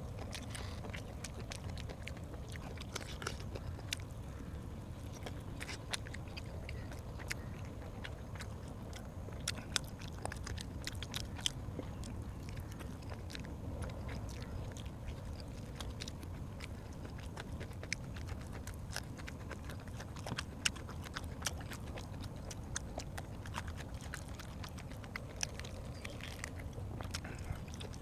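A person eating close to the microphone: chewing and biting food, with many irregular sharp clicks and smacks over a steady low hum.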